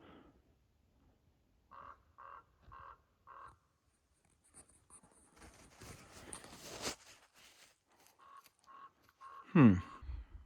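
A bird calling in two series of four short, evenly spaced calls about six seconds apart. Between them comes a stretch of noise that builds for about a second and a half, and near the end a loud sweep falls sharply in pitch.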